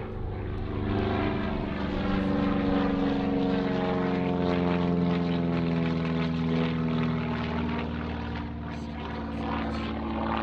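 TB-30 Epsilon's propeller and piston engine flying past, the engine pitch dropping steadily as it passes.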